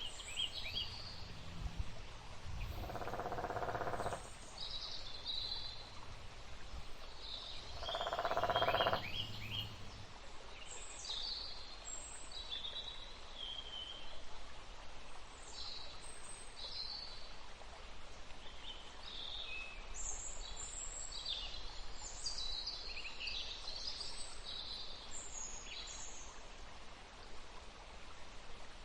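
Forest ambience: small birds chirping and singing over steady background noise, with two louder, low, drawn-out sounds of about a second and a half each, a few seconds in and again around eight seconds in.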